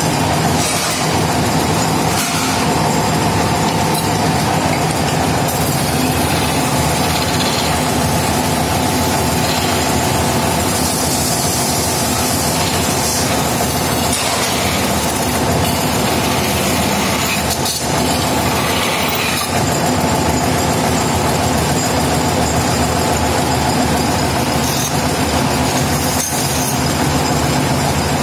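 Belt-driven metal spinning lathe running steadily while a long hand-held spinning tool presses a sheet-steel blank into a lamp shade: a steady machine drone with a few sharp knocks.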